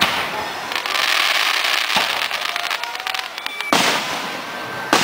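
Aerial fireworks shells bursting: sharp bangs at the start, a weaker one about two seconds in, and two more near the end. Between them there is a long stretch of hiss and rapid crackling.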